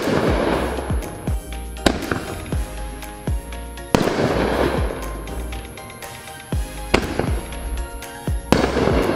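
Consumer artillery shells bursting: sharp bangs about two, four, seven and eight and a half seconds in, each big burst followed by a wash of crackling from the stars. Background music with a steady beat plays underneath.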